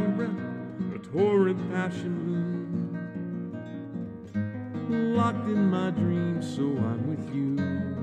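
Acoustic guitar playing an instrumental passage between verses of a slow ballad, with a melody that slides up and down between notes over sustained chords.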